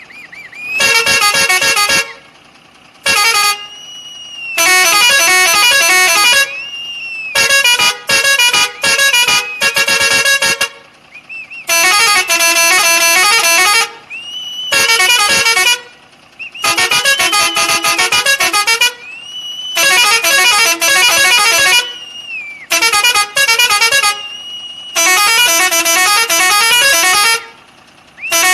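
Indian truck's horn sounding in about ten loud blasts with short gaps between, some long and held, others broken into quick stuttering toots. A faint whistling tone rises and falls in some of the gaps.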